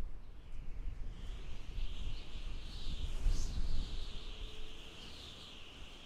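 Strong mountain wind gusting, a low buffeting rumble that rises and falls and eases near the end. From about a second in, a high, wavering hiss sits above it.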